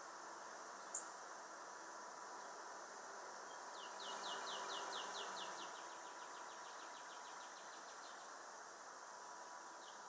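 A songbird sings a trill of quick downslurred notes about four seconds in, which speeds up and fades over a few seconds. A single short, high chirp comes about a second in, and a steady high hiss of insects runs underneath.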